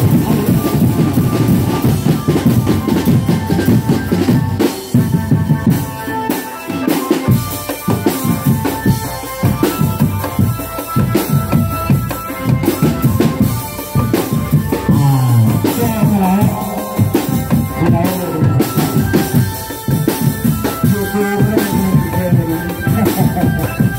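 Loud music with a busy, driving drum beat of bass drum and snare. Held melody notes sit above the drums, and a pitched line bends in pitch around the middle.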